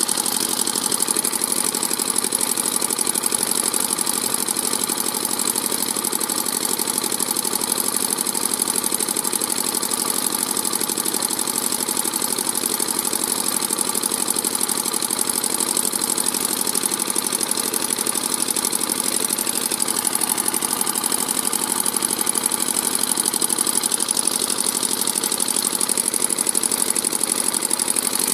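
Single-cylinder stationary diesel engine running at a steady speed, its rocker cover off so the valve rockers are exposed.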